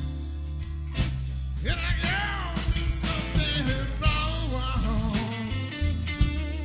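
Texas blues band playing an instrumental passage: a lead electric guitar bends notes over steady bass and drums.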